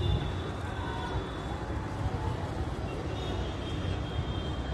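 Outdoor city ambience: a steady low rumble, with faint thin high tones at the start and again about three seconds in.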